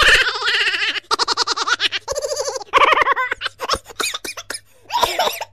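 A child laughing and shrieking, high-pitched and in rapid bursts, breaking into short choppy giggles toward the end.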